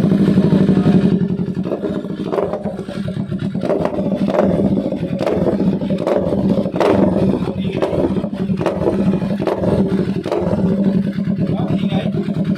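Kawasaki Z650's parallel-twin engine running steadily through an aftermarket exhaust, with a full, unbroken note and a few sharp ticks along the way.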